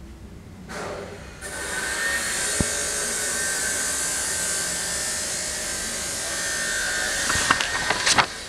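A loud, steady hiss with a thin whistling tone running through it, like a small motor whirring. It starts about a second in and cuts off near the end with a few sharp knocks.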